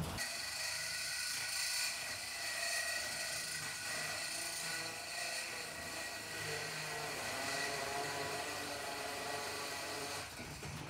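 Battery-powered cordless drill driving a large hole saw through painted wooden ceiling boards, its motor whining steadily under load as the saw cuts a round hole. The drill handles the load and stops right at the end.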